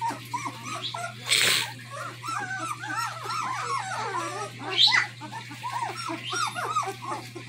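A litter of newborn German Shepherd puppies whimpering and squeaking, with many short rising-and-falling cries overlapping one another. They are hungry puppies crying to be fed. There is a brief burst of noise about a second and a half in.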